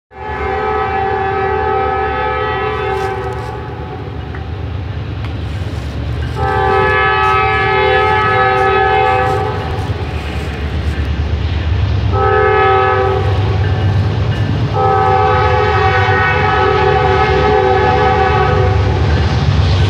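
Norfolk Southern diesel locomotive's air horn blowing the grade-crossing signal: two long blasts, a short one, then a long one, each a chord of several notes, over the low rumble of the approaching train. The pattern warns that the train is nearing a public road crossing.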